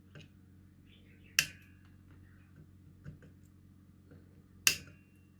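Two sharp snips about three seconds apart, each with a brief metallic ring: side cutters trimming the leads of a freshly soldered ceramic capacitor on a kit circuit board. Small handling clicks come in between.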